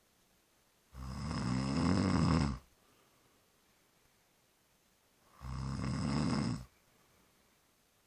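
A sleeping person snoring: two long, buzzy snores, each about a second and a half, about four seconds apart.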